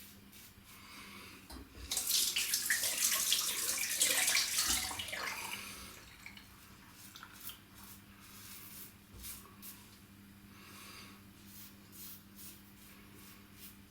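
Hot tap running full for about three and a half seconds, rinsing the coconut oil from a safety razor head, then a run of faint short scrapes as the razor goes back over the skin.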